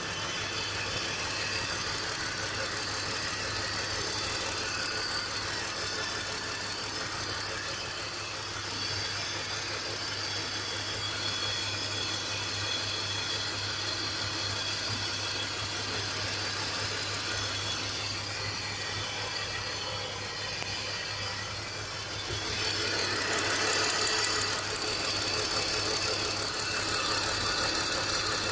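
Car engine idling, heard up close in the engine bay, with a steady hiss of air being sucked in through a vacuum leak. The owner suspects a hose that did not hook on properly. The sound gets louder about three-quarters of the way through as the microphone nears the leak.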